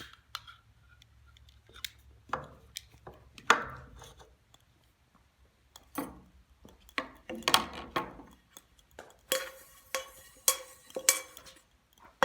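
Irregular knocks and clatter of camp cookware and utensils being handled, several strikes in the second half ringing briefly like metal.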